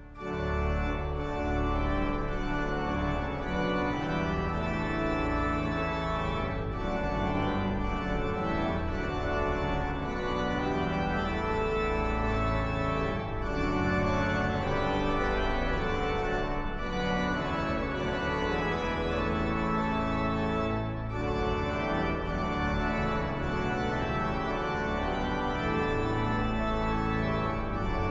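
Organ music: sustained chords moving every second or two.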